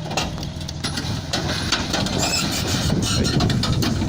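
Heavy machinery making a deep rumble with irregular clattering and knocking, getting louder toward the end.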